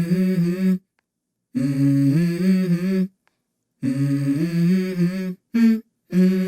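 Background music: a wordless hummed vocal melody in short phrases, broken by sudden silent gaps.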